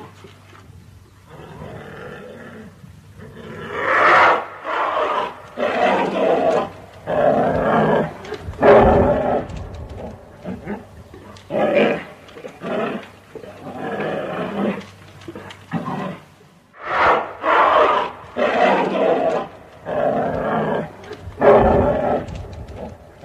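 Bear growling and roaring in a long series of short, loud calls, roughly one every second, starting a few seconds in, over a steady low hum.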